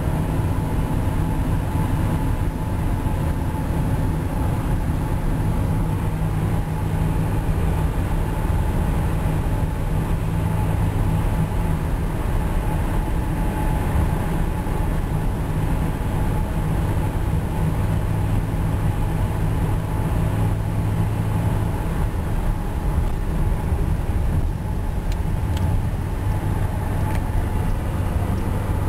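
Car with a Flowmaster exhaust cruising at highway speed: a steady low exhaust drone with the rolling hum of Yokohama Avid tires on the pavement.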